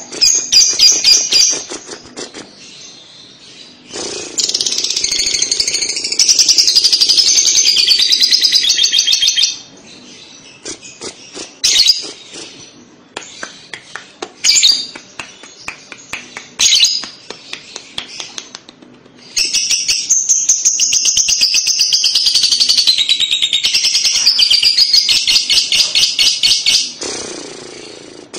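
Lovebird giving its 'kekek' (ngekek) song: a long run of rapid, high chattering trills. It comes in two long stretches of about five and seven seconds, with short chirps and quick ticking calls in between.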